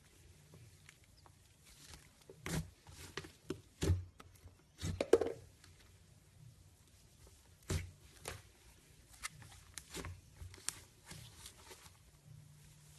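Hands working slime, giving irregular sticky clicks and pops with a short squelch about five seconds in.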